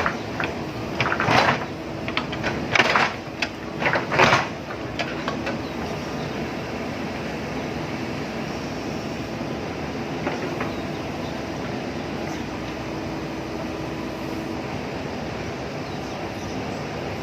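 JCB backhoe loader's diesel engine running steadily, with three loud scraping crashes in the first four or five seconds as it works earth and stone.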